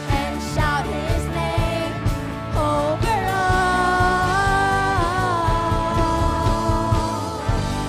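Live church worship band playing a pop-rock worship song, with a melody line that bends at first and then holds one long note from about three seconds in.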